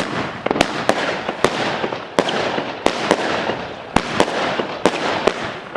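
Fireworks and firecrackers going off: a dense, continuous crackle broken by sharp bangs about twice a second.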